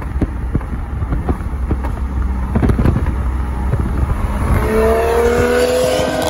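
BMW M2's turbocharged straight-six running hard at highway speed, its exhaust crackling and popping over a low rumble. Near the end the engine note climbs steadily as the car accelerates and pulls ahead.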